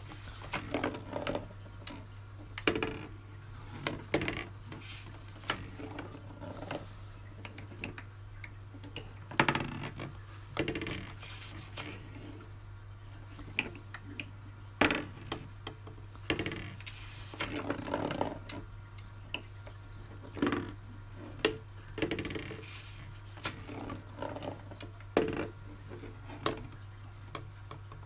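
A marble played on a cardboard Corinth (bagatelle) board, knocking irregularly against the paper-straw pins and cardboard walls as it runs down the board, over and over. A steady low hum sits underneath.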